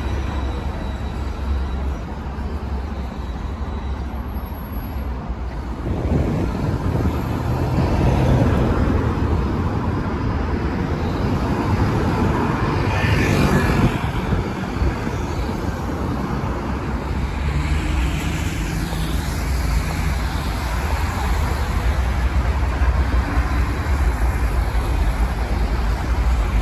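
Busy city street traffic with cars and trams going by. The noise is steady and grows louder from about six seconds in, with a brief higher-pitched sound near the middle.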